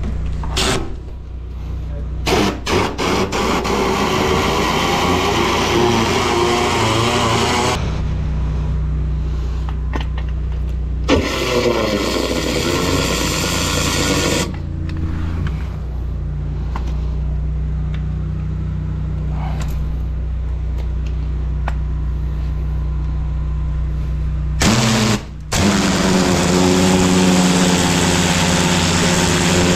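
High-pressure drain jetter's engine running steadily, with three spells of loud hissing high-pressure water, several seconds each, as the jet blasts kitchen fat out of a blocked sewer gully and the lance gun sprays.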